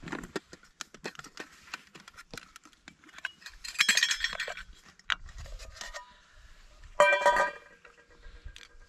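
Metal camping cook pot and lid clinking as they are handled and set down on rock, with many small clicks and two bright ringing clanks, about four seconds in and about seven seconds in; the second leaves a faint ring hanging on.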